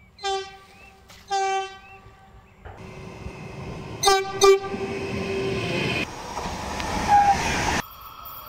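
A Trenitalia Hitachi regional electric train sounds its horn in two short blasts, then comes closer with a growing rush of passing noise and gives two more quick toots as it goes by. The passing noise cuts off suddenly near the end.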